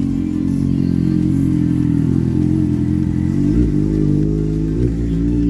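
Motorcycle engines running at a steady idle, with a couple of brief revs about three and a half and five seconds in.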